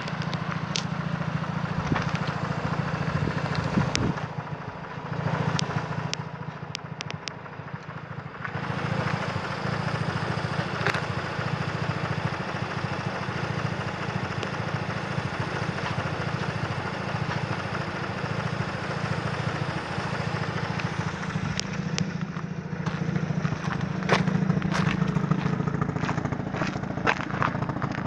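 Mazda RX-8's 13B Renesis two-rotor rotary engine idling steadily, with scattered clicks and crunches of footsteps on gravel, more of them near the end.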